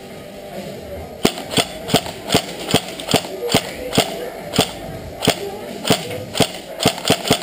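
Blowback airsoft rifle, a King Arms SIG 556 shorty, firing a run of about fifteen single shots, roughly two to three a second, starting about a second in.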